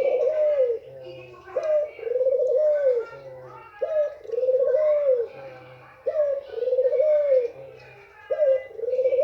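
White ringneck (Barbary) dove, a female, cooing over and over: each phrase a short rising note followed by a longer rolling coo, repeated about every two seconds, with four full phrases. Faint higher chirping sits behind it.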